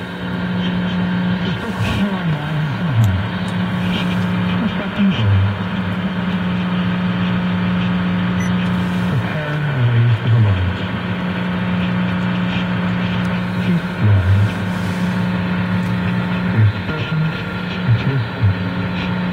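Car AM radio tuned to 530 kHz, picking up a weak, distant daytime station: static with a steady low hum, and faint snatches of a voice coming through now and then.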